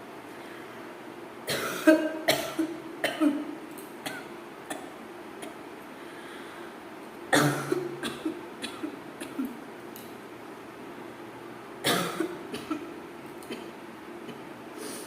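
A person coughing deliberately for a coughing challenge, in three bouts of several quick, sharp coughs each, a few seconds apart.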